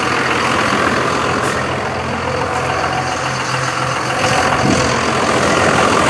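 A vehicle engine idling steadily, with a constant low hum and a fainter higher tone over it.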